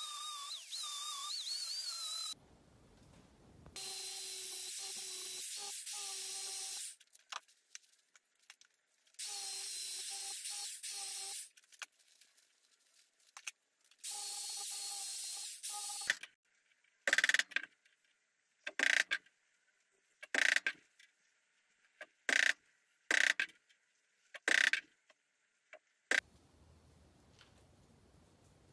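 Hand power tools working a cast copper bar clamped in a vise: an angle grinder running against the metal, then a drill fitted with a pad. They run in stretches of a few seconds with pauses between, and end in a string of short bursts about every second and a half.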